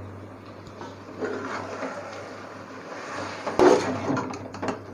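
Slotted metal ladle stirring thick chicken masala and yogurt in a metal pot: a soft, wet scraping, then a few sharp clicks and knocks of the ladle against the pot near the end.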